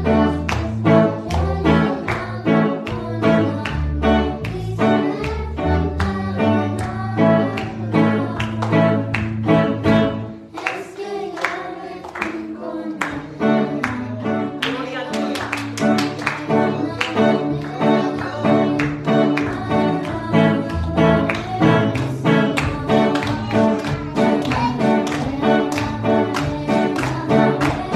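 A young girl singing a worship song into a microphone over backing music with a steady beat. The beat drops out about ten seconds in and comes back a few seconds later.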